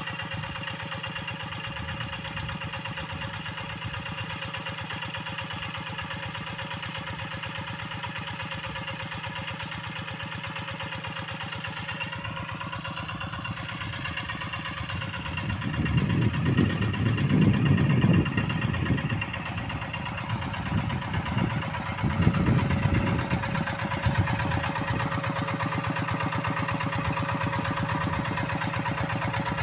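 Hand tractor's single-cylinder diesel engine running steadily. Its speed rises a little under halfway through, and it then grows louder and deeper in two stretches a few seconds apart.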